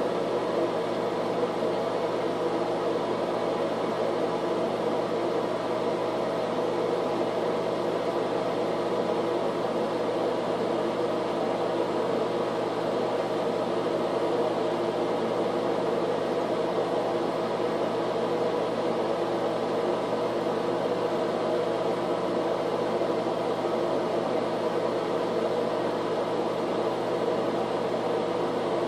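Steady mechanical whir with a low hum.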